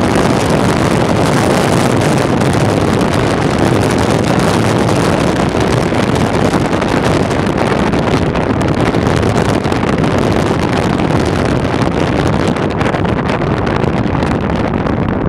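Steady rush of wind buffeting the microphone at speed, mixed with the rumble of skateboard wheels rolling down asphalt. The high hiss fades near the end as the ride slows.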